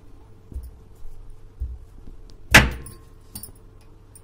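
Stone muller (batta) pounding small whole potatoes on a sil-batta grinding stone to crush them coarsely. A few dull thuds, then one loud sharp knock about two and a half seconds in, followed by a few light clicks.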